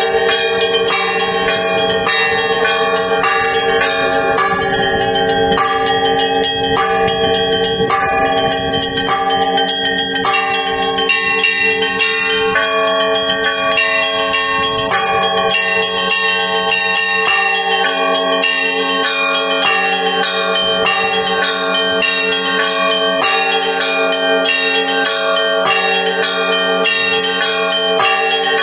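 Russian Orthodox church bells ringing in a continuous full peal. Small bells are struck in quick rhythmic patterns over the sustained hum of the larger bells.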